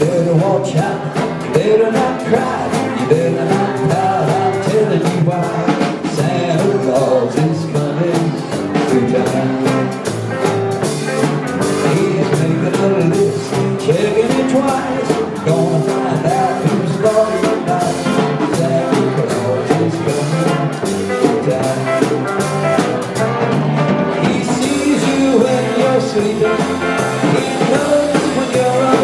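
Live band playing vintage rock and roll, with a drum kit keeping a steady beat.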